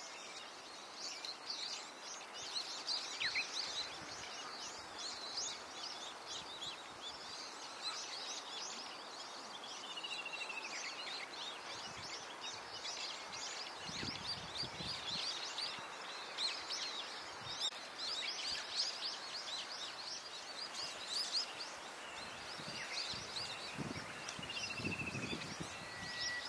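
Many songbirds chirping and singing at once: quick, high chirps throughout, with a few falling whistled notes over a faint steady outdoor hiss.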